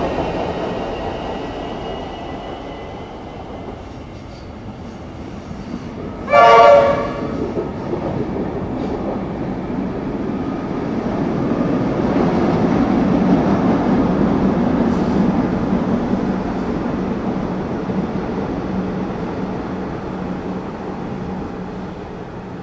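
Electric suburban trains: one pulls away and fades. About six seconds in, a short, loud train horn blast sounds. Another train then passes through the station at speed, its rumble rising and fading over a steady low hum.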